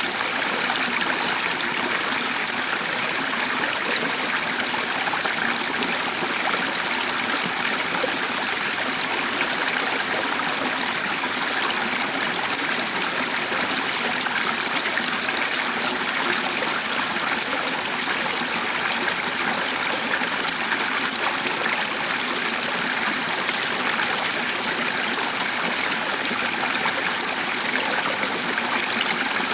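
Steady flowing stream: an even, unbroken rush of running water.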